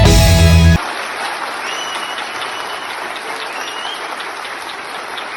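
Background music cuts off abruptly about a second in, followed by steady audience applause.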